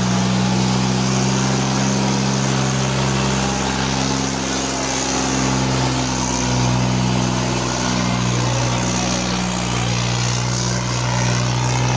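Tractor diesel engines working flat out under heavy load in a tractor tug-of-war, a steady drone with small shifts in pitch.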